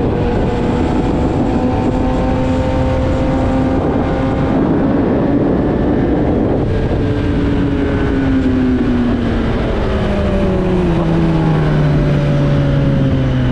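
Sport motorcycle engine running at a steady speed under a constant rush of wind and road noise, its note falling steadily in pitch over the second half as the bike slows.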